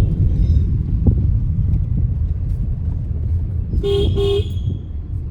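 Steady low road and engine rumble of a moving vehicle, with a vehicle horn giving two short toots in quick succession about four seconds in.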